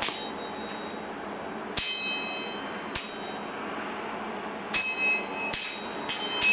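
A few sharp clinking knocks of something hard being struck, two of them followed by a brief high ringing, over a steady low hiss.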